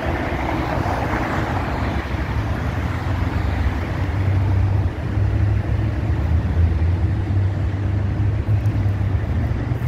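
Steady low rumble of car and freeway traffic noise.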